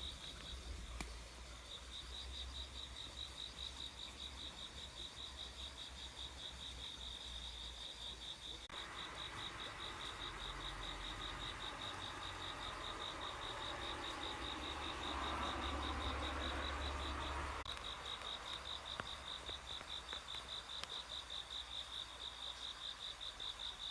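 An insect chirping steadily in a high, even pulse of about four chirps a second. A rushing noise cuts in sharply about nine seconds in, swells, then stops abruptly about eight seconds later.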